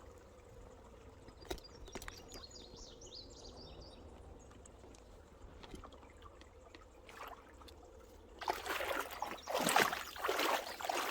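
Shallow creek water trickling faintly, then, about two-thirds of the way in, a run of louder, irregular splashes as someone moves through the water.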